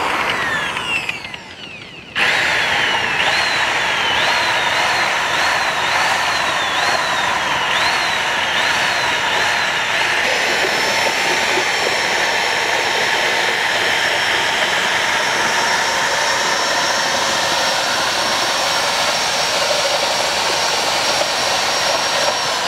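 Hand-held electric drill with a spiral paddle mixer running in a pot of milk and crushed Oreo biscuits, churning and splashing the liquid. The motor slows briefly about a second in and picks up again about two seconds in. Its whine wavers in pitch during the first half, then holds steady.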